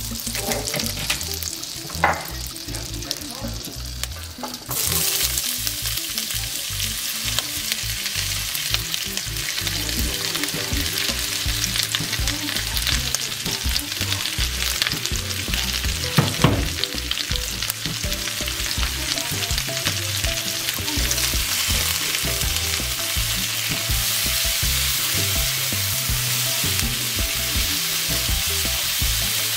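Olive oil and butter sizzling in a pan. About five seconds in, the sizzle jumps suddenly louder as sliced bell peppers and red onion fry in the hot fat, and a silicone spatula stirs them. There is a single knock about two seconds in and another about sixteen seconds in.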